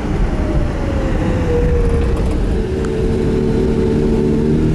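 1984 Mazda RX-7 GSL-SE's 13B rotary engine heard from inside the cabin. Its tone eases down in pitch as the car slows for a turn, then holds steady and grows stronger near the end, over a low rumble of road and wind noise.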